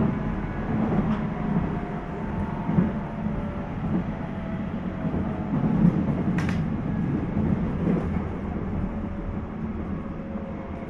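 Interior running sound of a JR 719 series electric multiple unit (car KuMoHa 719-1) under way: a steady rumble of wheels on rail with faint motor tones and a few sharp clicks from rail joints.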